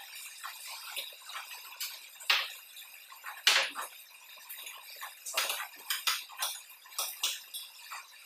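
Forks clinking and scraping against plates of spaghetti: irregular light clicks and taps, a few louder ones along the way.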